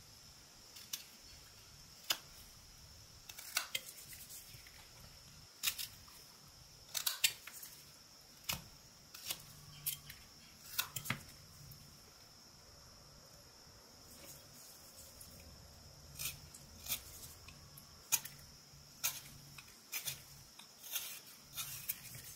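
Whittling knife slicing eastern white pine: short, sharp clicks as the blade cuts and chips snap free. The cuts come at irregular intervals, with a pause of a few seconds in the middle.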